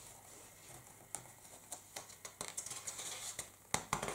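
Faint handling of a paper instruction booklet: light rustles and several small clicks and taps of fingers on the pages, the sharpest near the end.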